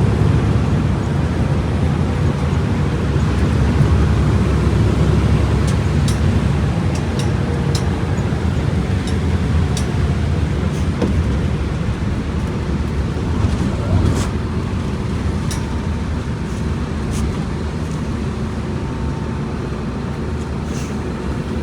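Diesel engine of a Volkswagen Volksbus 17.230 EOD bus running, a loud steady low rumble with scattered light clicks and rattles, easing slightly in loudness toward the end.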